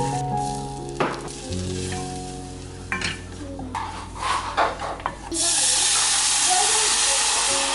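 A butter-and-flour roux sizzles in an enamel saucepan while a wooden spoon stirs and scrapes it. About five seconds in, water is poured into the hot pan and sets off a loud, steady hiss that lasts nearly to the end.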